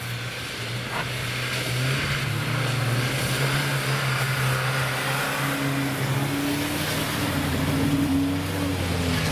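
Off-road SUV engine running hard as it drives through snow. It grows louder over the first couple of seconds, then holds a steady note.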